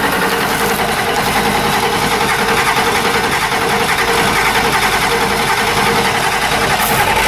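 Naturally aspirated 7.3 L IDI International Harvester V8 diesel idling at the tailpipe, a steady, fast, even exhaust beat. The engine is blowing white smoke, which the owner takes as a sign of a failing injection pump.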